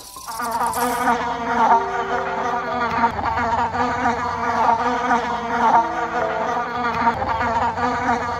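Flying insects buzzing: several overlapping steady hums at different pitches that shift and come and go, with no pauses.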